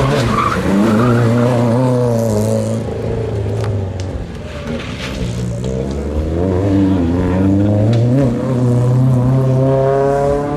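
Historic rally car's engine revving hard, its pitch climbing and dropping several times as it accelerates and changes gear, with a strong climb near the end.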